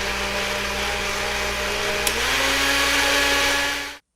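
Electric blender running, blending cacao powder, coconut oil and almond butter: a steady motor hum whose pitch steps up slightly about two seconds in, then cuts off abruptly near the end.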